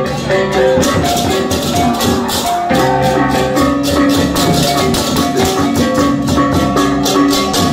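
Balinese baleganjur gamelan ensemble playing loudly: a rapid, dense clash of hand cymbals (ceng-ceng) over ringing gong and gong-chime tones that step through a melody, with drums.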